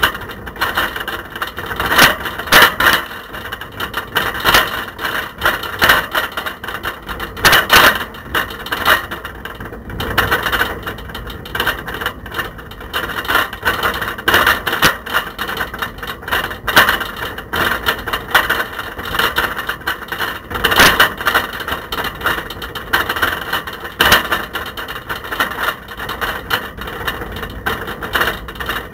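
A camera loose in a bicycle's front basket, rattling as the bike rides over the road: continual irregular knocks and clatter over steady road noise.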